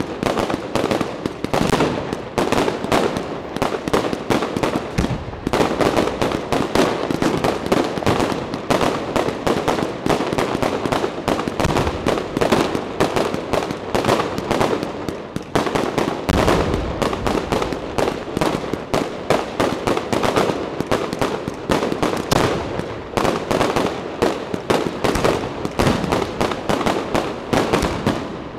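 Aerial fireworks display: a dense, continuous run of shell bursts, launch thumps and crackling, many bangs a second, fading away at the very end.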